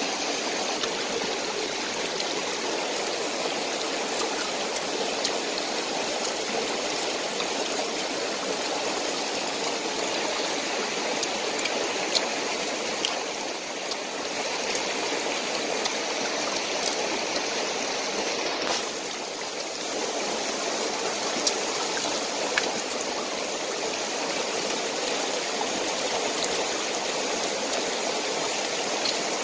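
Mountain stream rushing over rocks, a steady full rushing of water, with a few brief sharp clicks scattered over it.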